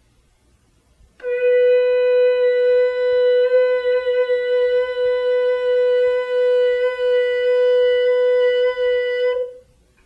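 One long, steady held note, pitched around the B above middle C and rich in overtones, starting about a second in and stopping cleanly near the end.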